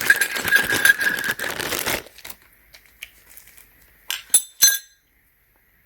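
Rustling and handling of dent-puller tools and their packaging for about two seconds, then two sharp clinks of hard pieces knocking together.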